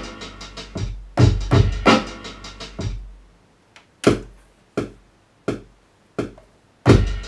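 Boom-bap drum pattern played from an Akai MPC 2000 XL sampler, with hits over a deep, lasting bass. About three seconds in the pattern stops, leaving a few single drum hits a little under a second apart, and the full pattern comes back in near the end.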